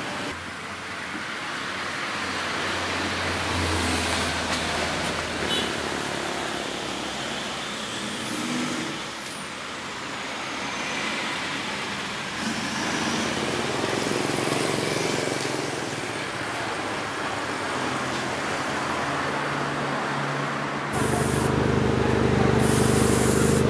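Car engines running at a drag race, with a steady low hum and passing engine noise; about three-quarters of the way through, a louder steady engine note starts suddenly.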